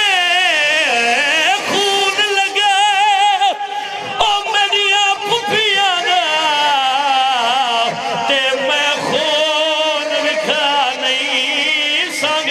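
A man singing a drawn-out mourning lament (masaib) with heavy, wavering vibrato, the held notes sliding up and down in long melismatic phrases.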